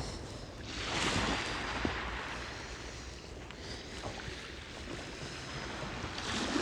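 Small sea waves washing onto the shore, with wind: an even rushing noise that swells about a second in and again near the end.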